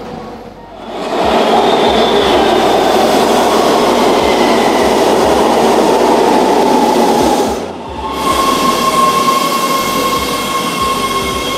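LA Metro subway train of Breda A650 heavy-rail cars pulling into an underground station: a loud rushing rumble of wheels on rail that builds about a second in and breaks off sharply about seven and a half seconds in. It is followed by a steadier running sound with a high whine of several steady tones.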